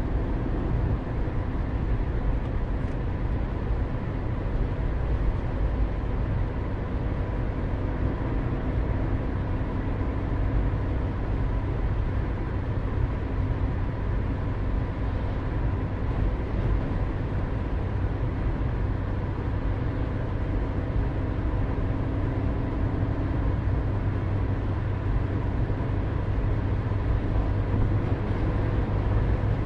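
A car driving at a steady speed: an even, low engine and road rumble with a faint steady hum, unchanging throughout.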